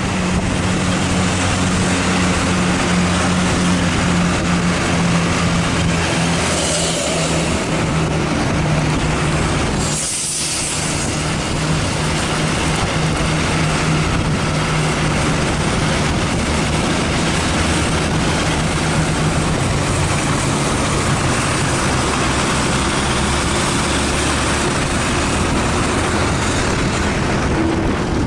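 Heavy bus engine droning steadily under load on an uphill climb, heard from close behind and alongside the bus over road and wind noise. Two short hisses come about seven and ten seconds in.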